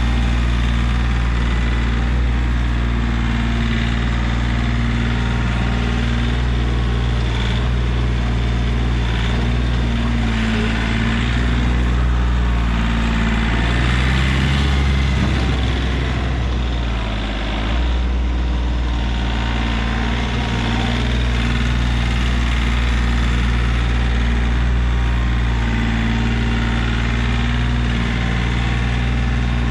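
Kioti CK3510 compact tractor's diesel engine running steadily while the front loader scoops and lifts a bucket load. About halfway through, the engine note rises briefly, then dips.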